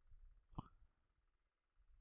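Near silence: room tone, with one brief faint sound about half a second in.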